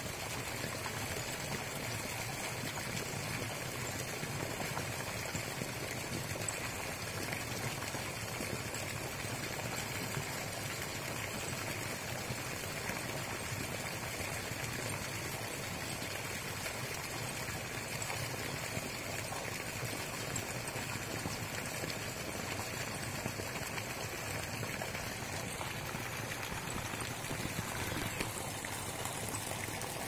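A jet of water arcing out of a pipe and falling into a pond, giving a steady, unbroken splashing.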